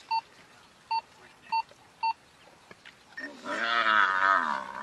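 Four short electronic beeps in the first two seconds, then, about three seconds in, a long wavering bellow: the distress call of a buffalo being eaten by lions.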